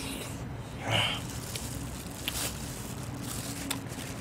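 A person's short breath about a second in, over a low steady hum.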